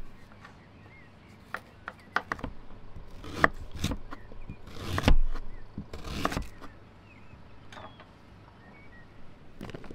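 Kitchen knife slicing through fresh ginger root and knocking on a wooden cutting board: a few irregular cuts, the loudest about halfway through.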